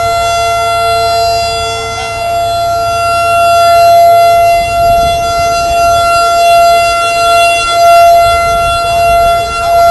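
Outdoor warning siren sounding a tornado alert: a steady, held tone made of two pitches together, its loudness swelling and fading a few times, over a low rumble.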